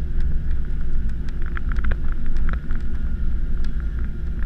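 Airliner rolling on the runway after landing, heard from inside the cabin: a steady low rumble with light clicks and rattles scattered through it.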